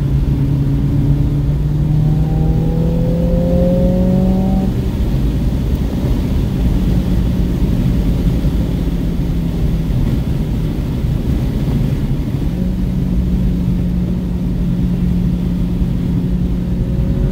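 Car engine heard from inside the cabin at speed: it climbs through the revs over the first few seconds, then holds a steady note, easing briefly a little past the middle before holding again. Heavy road and wind rumble runs underneath.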